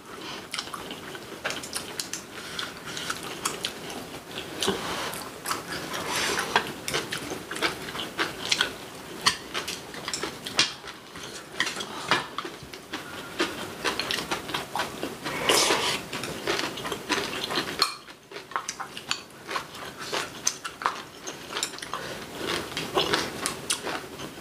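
Chopsticks clicking and scraping against ceramic bowls and plates, with chewing of braised kimchi and rice: close-up mukbang eating sounds, many small clicks throughout.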